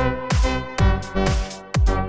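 Electronic dance music with a four-on-the-floor kick drum, about two beats a second, under held synth chords.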